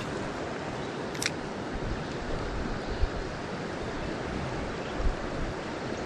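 Creek water running over a shallow rocky riffle, a steady rushing noise, with a single light click about a second in and two soft low bumps later on.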